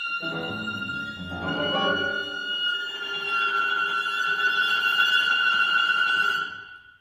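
Contemporary chamber quintet of flute, clarinet, piano, violin and cello playing live: a high held tone sustains over busier lower instrumental lines, the texture swells, then the whole ensemble cuts off about six and a half seconds in.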